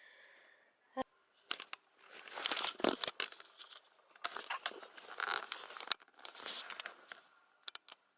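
Irregular rustling and crinkling, like handling of crinkly material, with a sharp click about a second in and a few lighter clicks.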